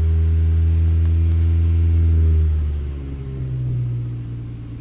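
Kia Cerato engine held at about 2,000–2,500 rpm while it burns off injector-cleaning fluid, running steadily at the tailpipe as white smoke blows out. About three seconds in, the sound drops in level and its pitch shifts lower.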